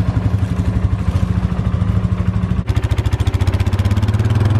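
Four-wheeler (ATV) engine running at a steady idle, an even rapid putter, with a brief break about two-thirds of the way through.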